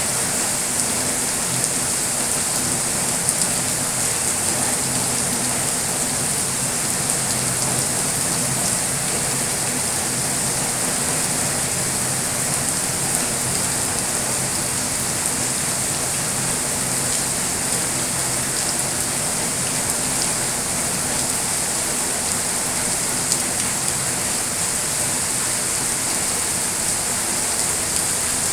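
Steady rain falling, an even hiss with scattered drops ticking, and a faint low steady hum underneath.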